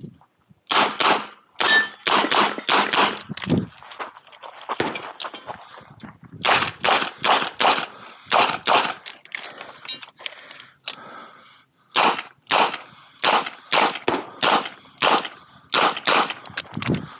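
Smith & Wesson 929 9mm revolver fired rapidly in several quick strings of shots, with short pauses between the strings.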